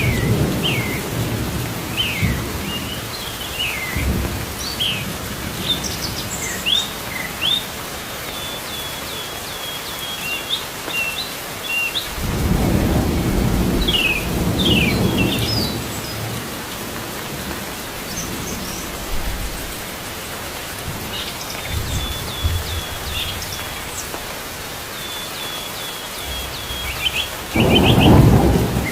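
Steady rain with two long rolls of thunder, one about halfway through and one near the end, while small birds keep chirping and give quick runs of repeated high notes over it.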